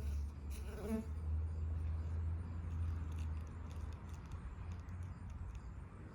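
Insects buzzing: a steady low hum, with a brief higher-pitched sound about a second in.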